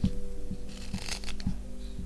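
Knife cutting a maple spoon blank: short scraping cuts through the wood, the longest about a second in, with a few soft knocks.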